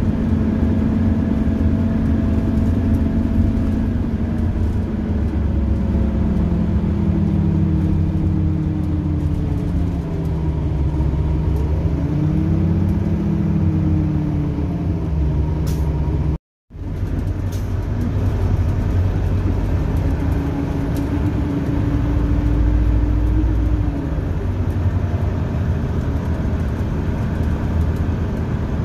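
Detroit Diesel Series 50 EGR inline-four diesel and Allison B500R6 automatic transmission of a 2001 Orion V transit bus, heard from inside the cabin while driving. The pitch falls over the first ten seconds or so, rises again, then holds steady, over a constant low rumble. The sound cuts out briefly about halfway through.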